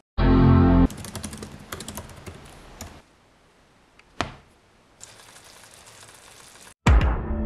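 A short, loud pitched tone, then typing on a MacBook keyboard in quick clicks for about two seconds. The laptop lid shuts with a single knock, then food sizzles in a frying pan, and another loud tone comes in near the end.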